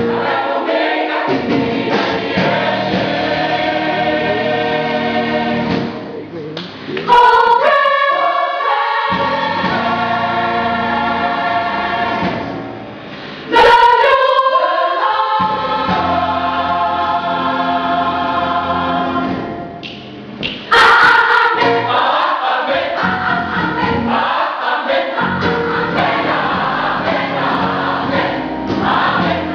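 Gospel choir of mixed voices singing a praise song. The sound drops briefly three times, and each new phrase comes in suddenly and loudly.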